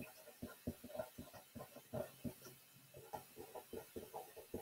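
Felt-tip pen writing on a paper worksheet: faint, irregular short scratches and taps of the tip on the paper.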